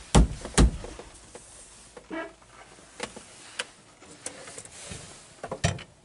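Knocks and clicks of a B-pillar trim cover being pressed and fastened into place on a Mercedes-Benz Fintail sedan: two sharp knocks in the first second, scattered light clicks, then a few more knocks near the end.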